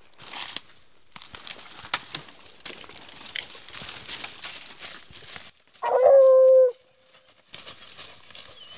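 A hunting hound gives one loud bay about six seconds in, a short steady howl of under a second, at quarry holed up under a rock. Before and after it, footsteps and bodies rustle and crunch through dry leaves and brush.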